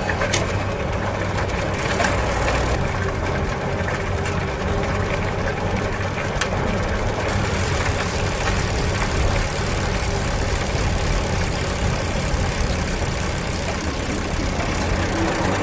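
Bicycle in motion: a steady rolling noise from the tyres and drivetrain, with a few sharp clicks.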